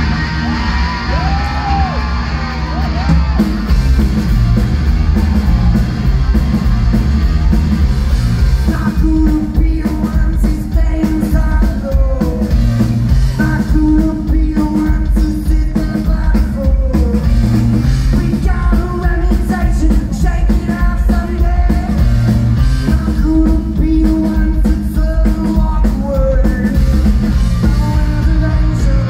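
Three-piece rock band playing live at full volume: electric guitar, bass guitar and drums, with the guitar alone for the first few seconds before the drums and bass come in. Lead vocals are sung over the band from about nine seconds in.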